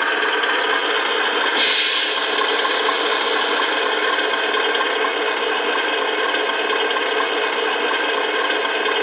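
Radio-controlled Scania Longliner model truck: a steady, rattling mechanical hum that gets brighter about one and a half seconds in.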